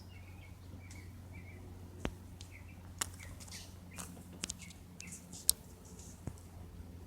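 Small birds chirping in short repeated notes, with several sharp clicks or taps, the loudest about five and a half seconds in, over a low steady hum.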